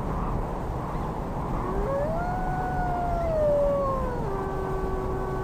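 A wolf howling: one long howl begins about two seconds in, rises and holds, slides down, then settles on a lower held note. A steady hiss runs underneath.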